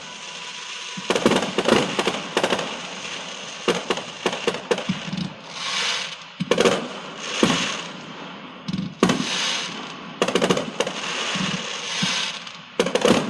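Fireworks going off: clusters of rapid sharp bangs and crackles, with stretches of hiss between the bursts.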